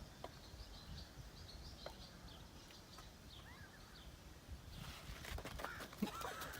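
Faint bird chirps over quiet outdoor background noise, the chirps a little busier near the end.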